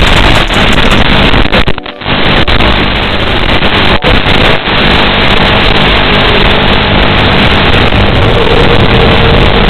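Loud, steady rushing noise carried on the audio of an FPV drone's analog video link, the drone's motor and wind sound mixed with radio hiss, cutting out briefly several times as the signal drops.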